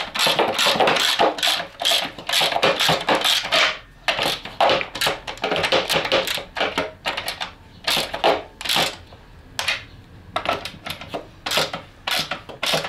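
Quick runs of clicks and rattles as nuts and bolts are fastened through a plastic ski widener on a snowmobile ski, densest in the first few seconds and then in shorter bursts.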